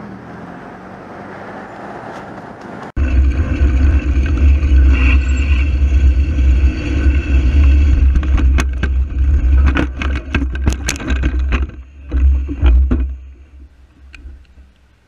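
Moderate outdoor background noise, then about three seconds in a sudden switch to a loud low rumble from a bicycle-mounted camera riding among traffic, with cars passing and a run of sharp knocks and rattles; the rumble dies down near the end.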